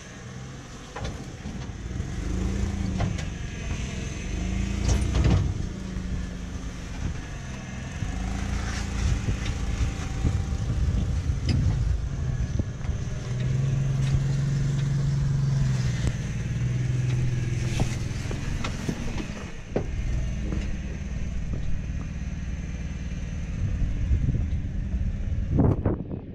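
Jeep Wrangler engine rock-crawling at low speed, its revs rising and falling in short bursts, with a few sharp knocks.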